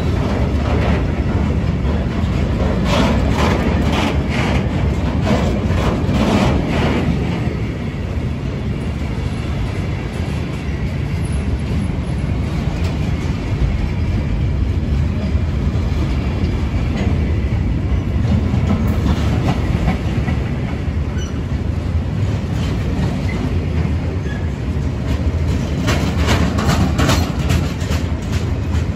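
Long freight train of covered sliding-wall wagons rolling past: a steady rumble of wheels on rail, with clusters of rapid wheel clicks about three to seven seconds in and again near the end.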